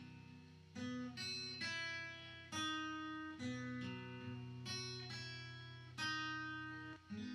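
Acoustic guitar playing a slow chord progression, each chord struck and left to ring before the next.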